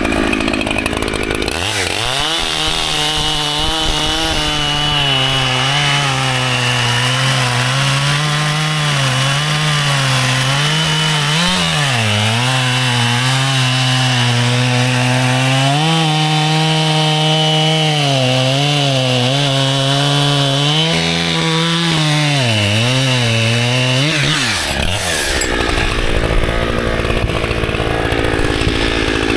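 Echo CS-7310P two-stroke chainsaw running at full throttle through wood, its engine note sagging and recovering again and again as the chain loads up in the cut. About 25 seconds in the steady engine note gives way to a rougher noise.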